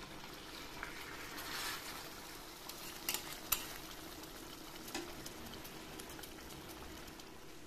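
Fish curry bubbling over a high gas flame in a steel pot, a steady low sizzling hiss, while a metal spatula stirs it; the spatula knocks sharply against the pot twice, about half a second apart, a little after three seconds in.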